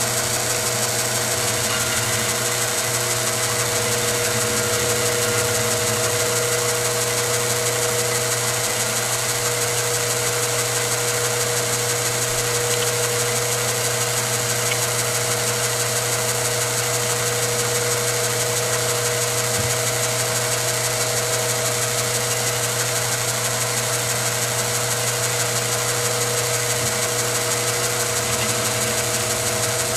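Milling machine running steadily, a quarter-inch end mill cutting a slot through a metal shotgun muzzle brake, with a constant hum and a held whine.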